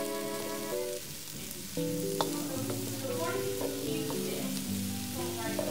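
Diced peppers and onion sizzling in vegetable oil in a frying pan, with a wooden spatula stirring and now and then clicking against the pan. Background music with held notes plays underneath.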